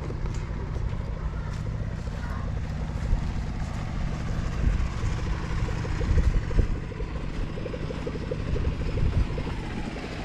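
Small wooden river motorboat's engine running as the boat passes on the river: a steady low rumble, with a rapid engine beat that comes through more clearly in the second half.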